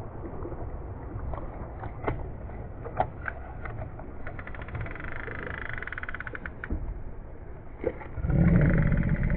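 Wind buffeting the microphone over choppy water, a low, steady rumble that grows much louder in a gust near the end. Over it come scattered sharp clicks and, in the middle, a couple of seconds of fast, even ticking, from the fishing tackle and the snapper thrashing on the line.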